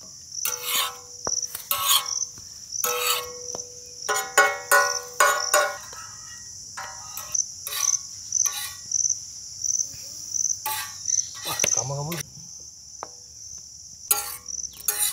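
Metal spatulas scraping and clicking on a large metal griddle in short, irregular strokes as toasted bread slices are turned. Insects chirp steadily and high-pitched in the background.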